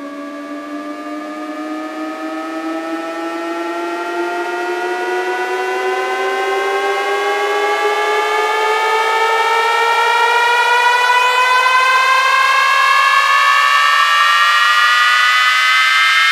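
Electronic riser from a DJ sound-check track: one long pitched tone gliding slowly upward and growing steadily louder, with a second tone rising alongside it on a slightly steeper slope.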